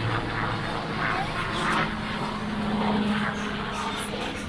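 Steady engine drone that steps up in pitch about a second and a half in, with faint voices in the background.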